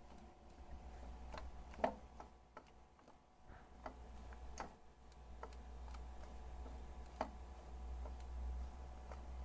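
A faint, steady low hum with irregular light clicks and ticks over it, two of them louder, about two seconds in and about seven seconds in.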